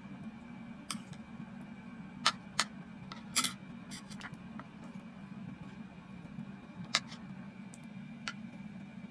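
A metal spoon clinking and knocking against a ceramic bowl of soup: about seven short, sharp clinks at irregular intervals, the loudest a little over two seconds in and near seven seconds. A steady low hum runs beneath.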